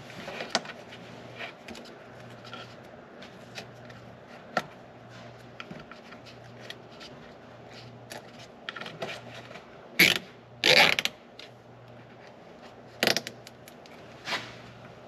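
Hands working on a UTV wiring harness: scattered small clicks, taps and scrapes of parts being handled. About ten seconds in there are two louder short rasps, with a sharp click a few seconds later.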